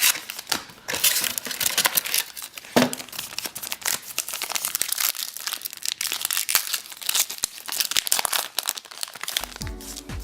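Baseball card pack wrappers crinkling and tearing as the packs are handled and opened, a close run of sharp crackles. Music comes in near the end.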